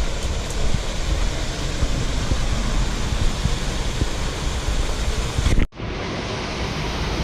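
Steady rush of a waterfall, with wind buffeting the microphone in the first part. The sound drops out for an instant about five and a half seconds in, then carries on steadier and duller.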